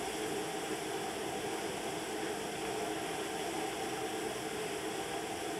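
Crab deep-frying in a wok of hot oil: a steady hiss of bubbling oil over a steady mechanical roar from the kitchen's equipment.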